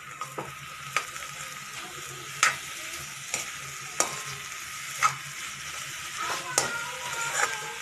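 Spiced potato filling sizzling in a kadhai while a spatula stirs and scrapes it, with a few sharp knocks of the spatula against the pan.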